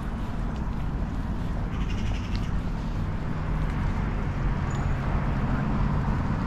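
Outdoor traffic rumble, with an engine hum building over the last couple of seconds. A brief high call is heard about two seconds in and a short high chirp near five seconds.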